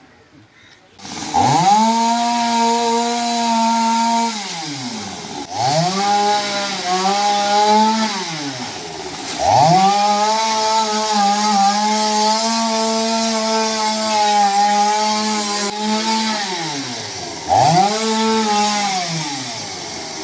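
Chainsaw cutting through a fallen tree, started about a second in. It revs up, holds at high speed and drops back to idle four times, with the longest cut in the middle.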